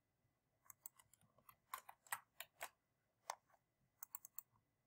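Faint, irregular clicking of computer keyboard keys being typed: a dozen or more sharp clicks in small clusters, starting under a second in and stopping near the end.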